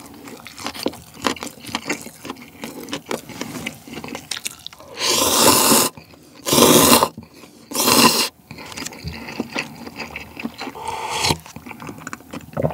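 Wet chewing, then three loud slurps of spicy instant cup noodles sucked straight from the cup, about five, six and a half and eight seconds in, followed by more chewing and a short slurp near the end.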